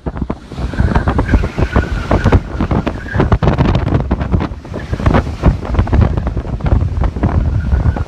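Hurricane-force wind buffeting the microphone: a loud, gusty rumble with constant irregular blasts. A faint high whistle runs for about two seconds, starting about a second in.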